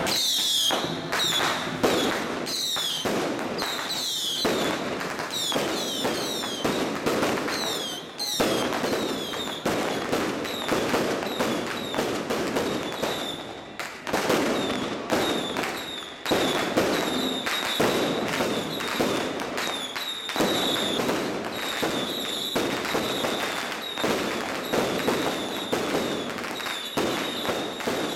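A long string of firecrackers crackling in a continuous rapid run of sharp pops, with a thin high whistle above it. It is the salute set off to greet a deity's palanquin in a Taiwanese temple procession.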